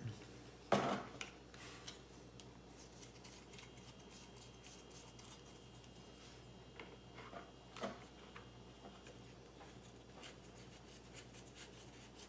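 Small plastic parts being handled and clicked together as an LED video light is fitted onto a phone grip's mount: faint rubs and ticks, with a sharp knock about a second in and another near eight seconds.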